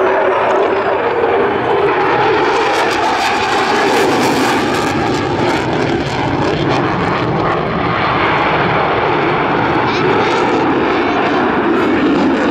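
McDonnell Douglas F/A-18C Hornet fighter's twin General Electric F404 turbofans: loud, steady jet noise as the aircraft pulls through a high-g display manoeuvre.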